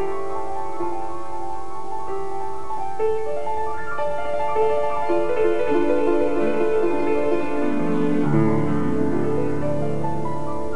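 Background piano music; about eight seconds in, the notes step down into a low, held chord.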